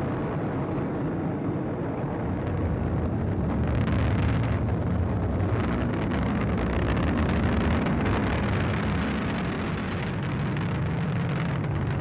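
Atlas V rocket climbing after launch, its main engine and solid rocket boosters burning: a steady deep rumble that grows a little louder a few seconds in and eases slightly near the end.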